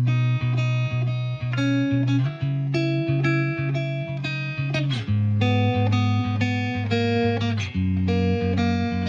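Background music: a plucked guitar line over steady bass notes, at an even tempo.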